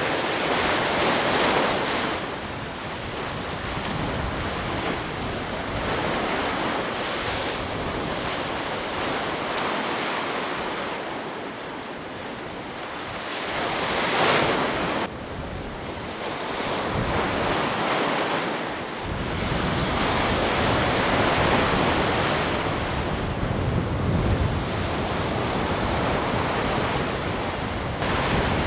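Storm-surge surf on the Baltic, breaking and washing against an eroding earth embankment, swelling and easing every few seconds. Gusts of wind buffet the microphone, heaviest in the second half.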